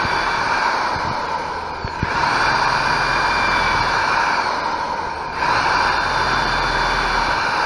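Electric drill boring a pilot hole through asphalt composite shingles into a wooden roof truss, its motor whining steadily. It eases off about two seconds in and again about five seconds in, then speeds back up each time. The bit is biting into solid wood rather than popping through into empty space: the truss has been found.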